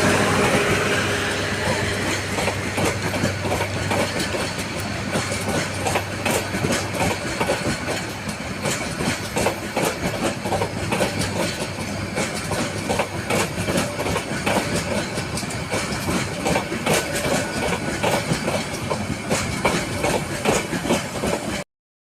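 Suborno Express inter-city train passing: the diesel locomotive's engine hum fades over the first few seconds, then the carriages' wheels clatter steadily over the rail joints. The sound cuts off suddenly near the end.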